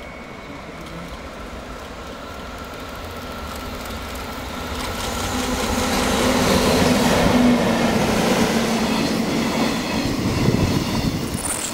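A JR EF64 electric locomotive hauling a freight train of Chiki flat wagons loaded with rails, approaching and passing close by. The rumble builds for several seconds, with a steady hum as the locomotive goes by. Then the wagons' wheels run past on the rails.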